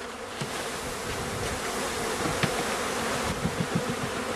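A mass of honeybees buzzing loudly as a package of bees is shaken out of its cage into a Langstroth hive. The buzz is steady and swells a little, with a few soft knocks about halfway through.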